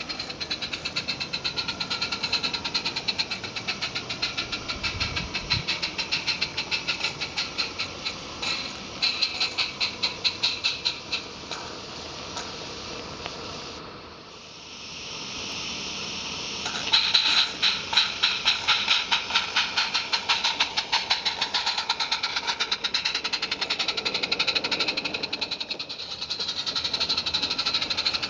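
Roundhouse live-steam model Fowler locomotive working a short train, its exhaust chuffing in quick, even beats over a steady hiss of steam. About halfway the beats drop away briefly to a hiss, then come back louder and sharper.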